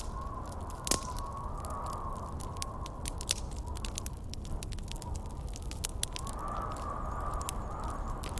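Campfire crackling with many sharp pops, a loud one about a second in, over a howling wind whose whistling tone swells and fades twice, and a steady low rumble.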